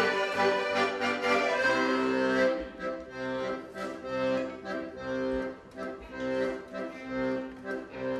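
Accordion and violin playing together. About two and a half seconds in, the fuller playing thins out to accordion chords held and repeated roughly once a second.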